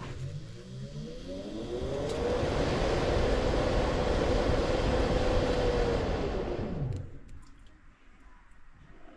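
Genteq Evergreen ECM blower motor spinning up a squirrel-cage blower wheel on first power-up: a whine rises over the first couple of seconds, holds steady with a rush of air, then winds down and stops about seven seconds in. The motor is expected to try turning both ways before it settles on its speed.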